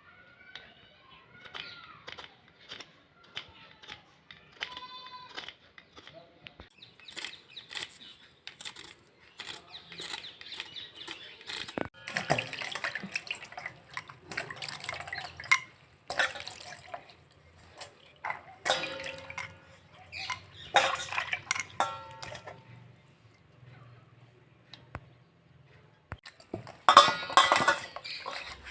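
Water splashing and dripping among scattered knocks and clicks of kitchen handling, with denser clattering in the middle and near the end.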